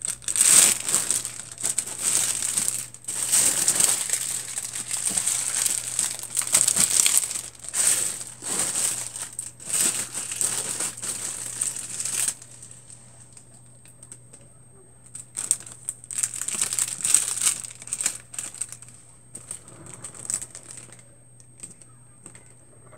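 Clear cellophane basket wrap crinkling and rustling as wrapped gift baskets are handled and moved. It runs for about twelve seconds, stops briefly, then comes again for several seconds.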